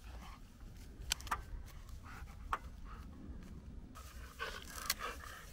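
White Swiss Shepherd mouthing and carrying a wooden stick: a few sharp clicks and cracks of teeth and wood, with a rougher scuffling stretch near the end and a steady low rumble underneath.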